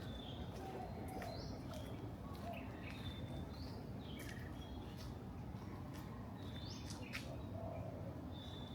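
Birds chirping in the morning, one repeating a short high call that rises and levels off about every second or two, over a steady low background rumble.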